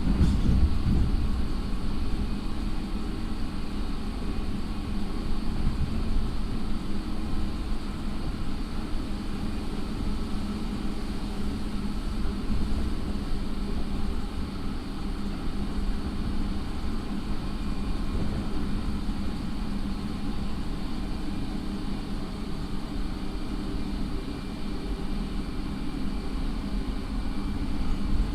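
Steady running noise inside a JR 209 series electric commuter train motor car: a low rumble of wheels and car body, with a few faint steady tones above it.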